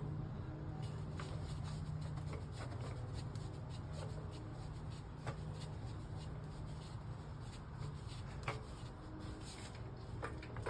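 Light scattered clicks and rubbing from tools and parts being handled under the truck, over a steady low hum.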